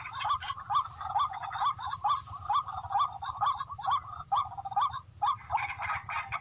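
Rail (tikling) calling: a steady string of short, rising notes, about three a second.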